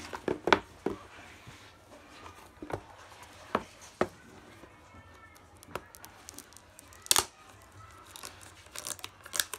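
Clear plastic shrink-wrap being torn and peeled off a cardboard box: a string of short, sharp crackles and rips at irregular intervals.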